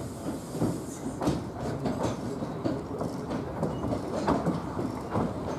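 Small narrow-gauge steam locomotive rolling slowly over yard track, with irregular clanks and knocks from its wheels and motion.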